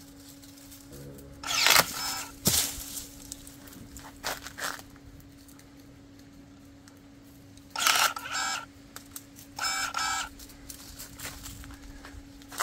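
Kebtek KTE-35 cordless brushless pruning shears cutting through a thick branch: a brief motor whir, then a loud crunch of the wood giving way ending in a sharp snap about two seconds in. Two more short whirring bursts follow near the end.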